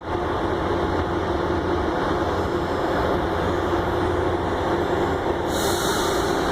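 CPTM CAF Série 2000 electric multiple unit with its equipment running, a steady hum carrying a low tone. About five and a half seconds in comes a short hiss of air lasting about a second.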